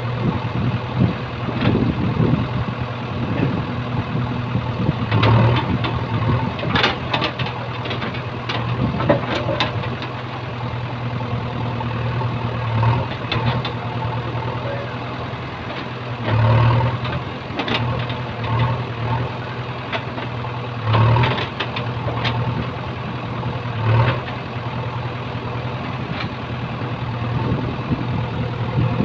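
JCB backhoe loader's diesel engine running steadily, swelling louder about five times as the backhoe arm works the bucket under hydraulic load while backfilling a pipeline trench. Short knocks and clatter come in a cluster between about six and ten seconds in.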